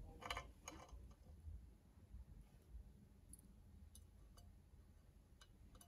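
Faint, sparse clicks and light metallic ticks of small screws and parts being handled on a QHY CFW3L filter wheel. Two slightly louder rattling clicks come in the first second.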